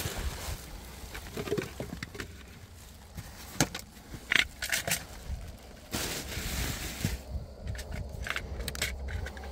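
Black plastic bag crinkling and rustling as it is handled, with scattered small knocks and clicks.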